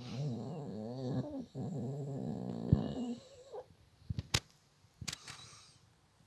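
A sleeping dog snoring: two long snores one after the other, pitched and wavering up and down. A few short, sharp clicks follow about four and five seconds in.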